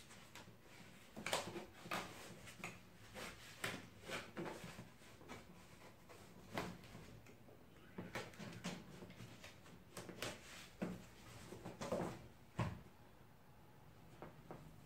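Utility knife cutting through a stiff foam sheet on a cutting mat: a string of short, irregular cutting strokes and clicks.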